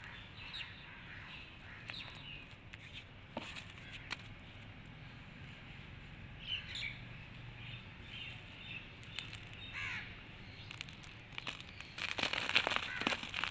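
Dry red brick sand sifting through fingers with faint gritty ticking, then, about twelve seconds in, a packed cake of the sand crushed and crumbled in the hands with loud, dense gritty crackling.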